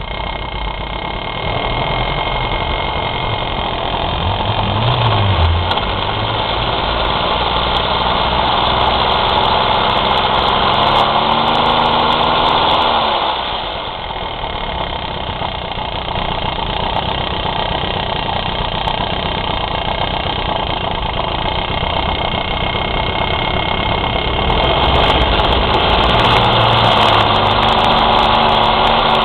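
Sachs Spartamet's small two-stroke auxiliary engine running, with an annoying noise that the owner cannot account for. Its pitch climbs slowly for a few seconds and drops back suddenly about halfway through, and it grows louder again near the end.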